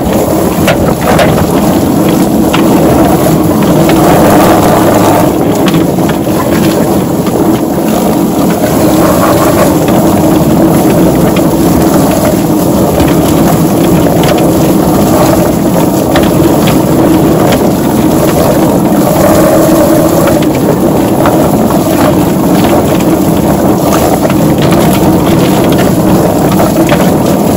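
SuxiDi 110V electric chicken plucker running steadily and loudly, its spinning drum tumbling a turkey against the rubber plucking fingers while a hose sprays water into the drum.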